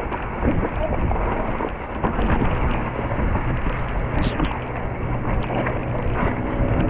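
Mountain bike descending a wet, rough dirt downhill trail at speed: a steady rumble of tyres on mud and the bike rattling over the bumps, with frequent sharp clicks and knocks and wind buffeting the microphone.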